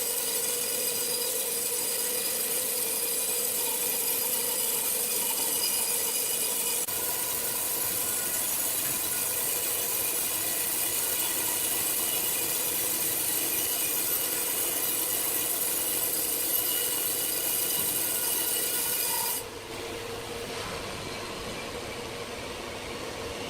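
Sawmill saw cutting through wood: a steady, high-pitched sawing sound with a constant whine. About nineteen seconds in, the cutting sound drops away abruptly and a quieter steady running sound remains.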